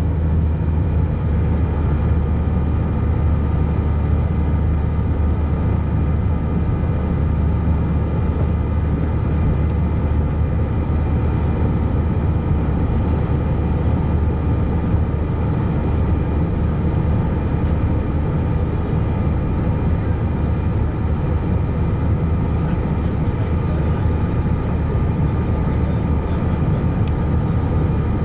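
Jet airliner engines heard from inside the cabin during the climb after takeoff: a steady rumble with a constant hum.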